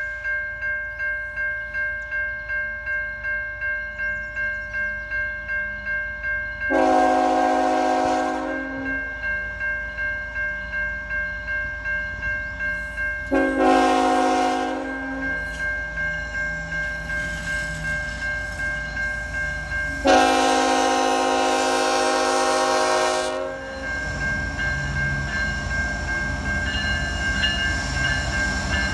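A locomotive's multi-note chime horn sounds three times: a blast about seven seconds in, a shorter one in the middle, and a long one about twenty seconds in, over a level-crossing bell ringing about twice a second. After the last blast the train rumbles past.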